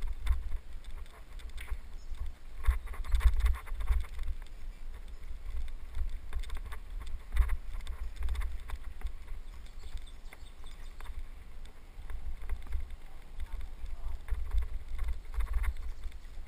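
Wind buffeting the microphone as a bicycle rolls along a bumpy dirt trail, with a fluctuating low rumble and scattered clattering rattles as the bike jolts over the ground.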